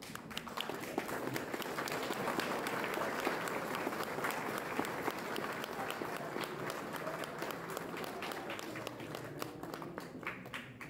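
A crowd applauding, many hands clapping at once, with voices mixed in.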